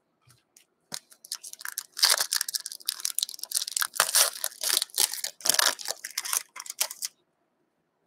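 Plastic wrapper of a 2019-20 O-Pee-Chee hockey card pack being torn open and crinkled: a dense crackling that starts about a second in and stops about a second before the end.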